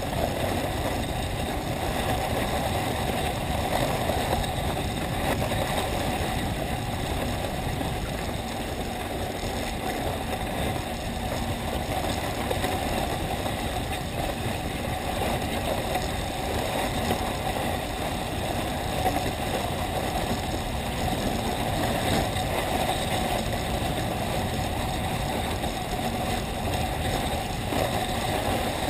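Steady hiss and rumble of a seated snow rider's runners sliding over groomed snow while towed up a T-bar lift.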